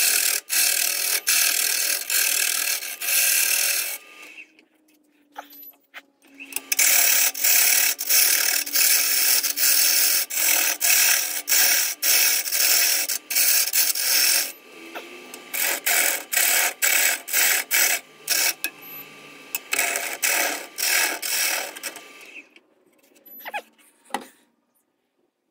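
Bowl gouge cutting a spinning eucalyptus burl bowl on a wood lathe. The cutting comes in loud passes broken into rapid pulses as the tool meets the irregular burl and live edge. The cuts go lighter and more broken in the second half and stop a little after twenty seconds in.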